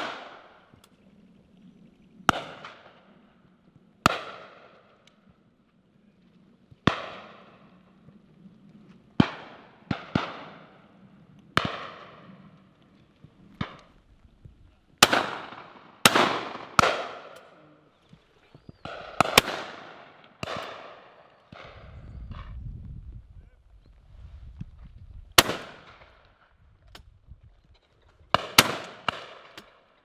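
Shotguns firing at driven partridges and pheasants passing over a line of guns: about twenty shots at irregular intervals, some close and loud, others fainter from guns further down the line, a few fired as quick doubles, each ending in a short echo.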